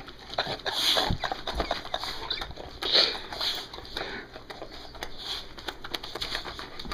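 Olde English Bulldog's excited mouth noises: the tongue flopping about with wet smacks and clicks, mixed with irregular breathy bursts.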